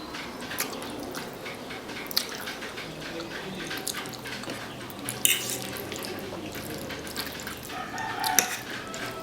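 Close-miked eating sounds: wet chewing and mouth noises, with scattered sharp clicks, three of them standing out about two, five and eight seconds in.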